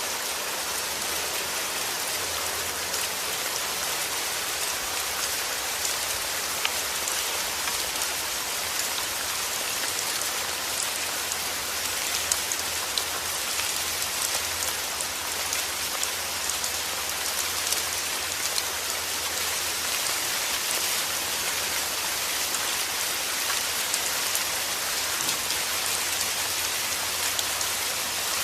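Heavy rain falling steadily: a dense, even hiss with many small drop ticks scattered through it.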